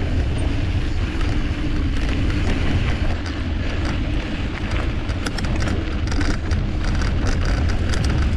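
Mountain bike rolling along a dirt trail: wind buffeting the microphone over a steady low tyre rumble, with a run of quick clicks and rattles from the bike from about three seconds in.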